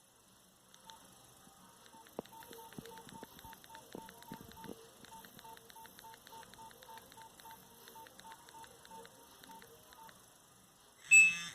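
Nokia 1110 mobile phone beeping: an even run of short beeps, about three a second, with light clicks and a few knocks. Near the end comes one brief, loud electronic tone.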